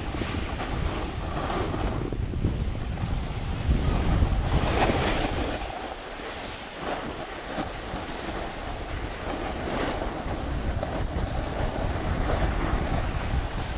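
Wind buffeting an action camera's microphone during a snowboard run, with the steady hiss of the board sliding over groomed snow. The low rumble eases for a couple of seconds about halfway through.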